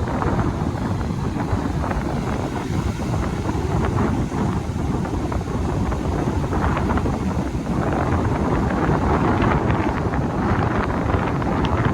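Strong wind buffeting the microphone: a loud, continuous rumbling rush that swells and eases, heaviest in the low end.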